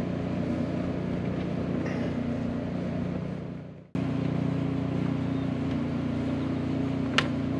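A steady low mechanical hum. It fades out and cuts back in abruptly about four seconds in, and a single sharp click sounds near the end.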